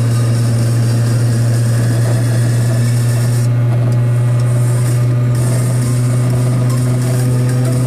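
Piaggio Ape 50 three-wheeler's small two-stroke single-cylinder engine running at a steady, unchanging pitch while driving.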